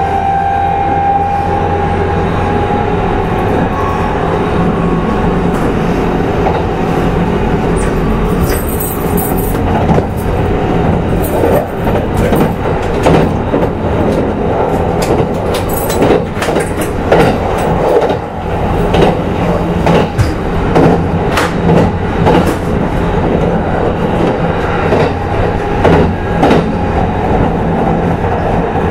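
Kintetsu 22000 series limited-express motor car running at speed: steady rolling noise with a slightly falling motor whine that fades in the first couple of seconds, then repeated clickety-clack of the wheels over rail joints from about ten seconds in.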